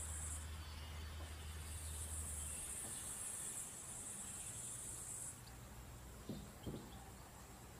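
High-pitched insect chirring in long unbroken stretches, the longest lasting about three and a half seconds, over faint outdoor ambience. A low hum underneath drops away about a third of the way in.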